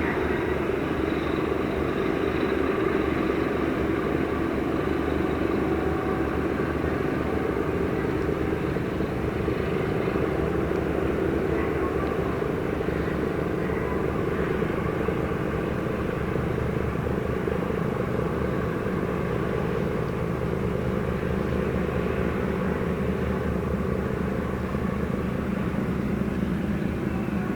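Steady low mechanical drone with an engine-like hum, unchanging throughout.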